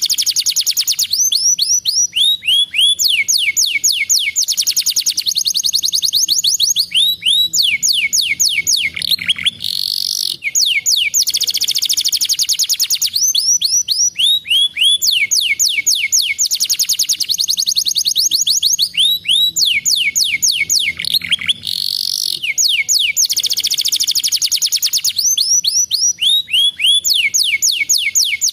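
Domestic canary singing a long, continuous song of fast trills, runs of rapid repeated high notes that change from phrase to phrase, with a short break about ten seconds in and again about twenty-two seconds in.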